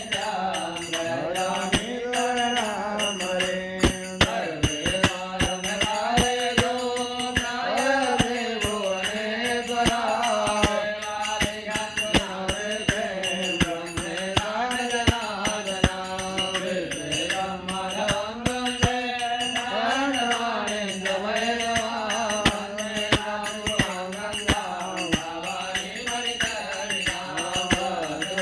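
A devotional mantra chanted to music: a voice rising and falling in pitch over a steady drone, with frequent sharp percussive strikes.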